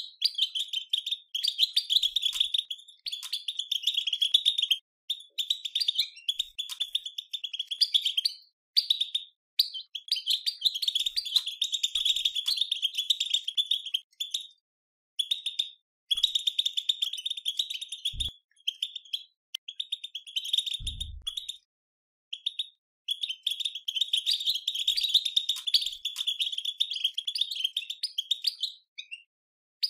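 European goldfinch twittering chatter (the 'batbata' call used to stir goldfinches into song): rapid, dense high twittering in phrases a few seconds long, broken by short pauses. A dull low thump comes about eighteen seconds in and another about three seconds later.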